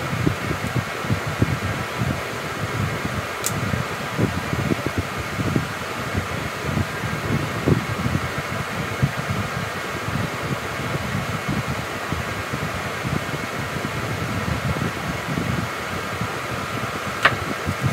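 A fan running steadily, with an uneven low rumble under its whir; two brief faint ticks, one a few seconds in and one near the end.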